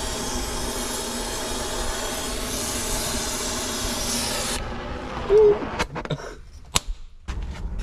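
Oxy-acetylene brazing torch hissing steadily at a copper refrigerant line in a heat pump condenser. About four and a half seconds in the hiss stops abruptly, followed by a brief loud sound and a few faint clicks.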